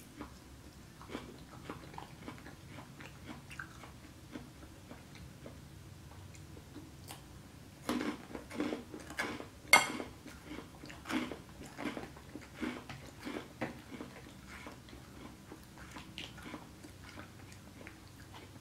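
Close-up chewing of a forkful of lettuce salad, with short crunches that come in quick clusters, loudest about eight to ten seconds in.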